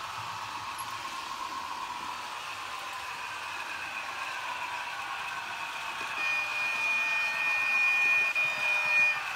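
HO-scale model trains running on the layout: a steady mechanical rumble of small electric motors and wheels on track, with a pitch that slowly falls. About six seconds in, a steady high tone with several overtones joins for about three seconds, then stops.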